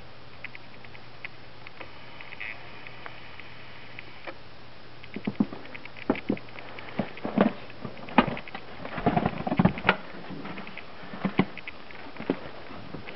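Footsteps crunching through snow, an irregular run of crunches from about five seconds in until near the end, over a steady hiss with faint fine ticking.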